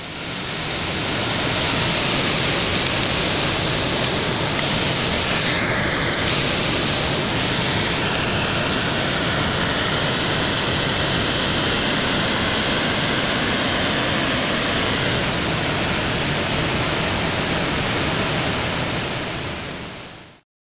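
Steady rushing noise that fades in at the start and fades out just before the end.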